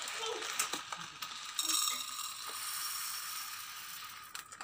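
Dry split moong dal pouring from a steel measuring cup into a metal pressure cooker, the grains rattling and hissing against the pot.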